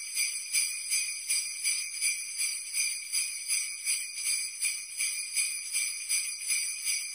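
Jingling bells shaken in an even rhythm, about two to three shakes a second, thin and high with no low end.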